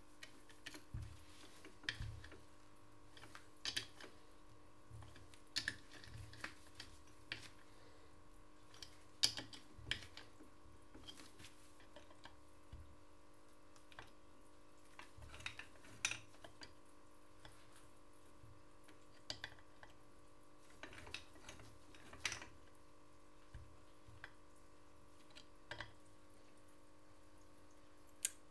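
Scattered light metallic clicks and taps of hand tools on the parts of a Simson M531 moped engine's clutch during hand assembly, irregular and a few seconds apart, over a faint steady hum.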